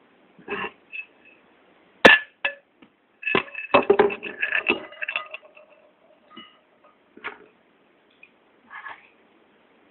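Chopsticks clicking against white ceramic plates and soybeans dropping onto a plate: a scatter of small clinks, some with a short ring of the plate. The sharpest clink comes about two seconds in, and a busy run of clinks follows at about four seconds.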